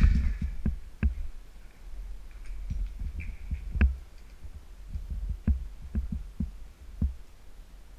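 Footsteps and gear movement of a player crossing a rubble-strewn concrete floor, carried through a body-worn action camera: uneven low thuds and a few sharper clicks over a steady low rumble of camera handling.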